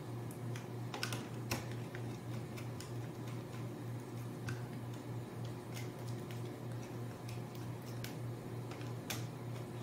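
Scattered small clicks and taps as a screwdriver and wire ends work the screw terminals of a contactor, over a steady low hum.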